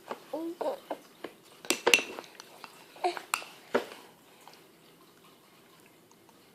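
A feeding spoon clicking against a bowl about five times, sharp separate clicks, with a short vocal sound near the start.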